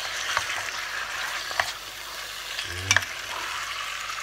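Diced turkey meat sizzling as it is seared in an enamel pot, stirred with a wooden spoon that knocks against the pot three times, loudest about three seconds in.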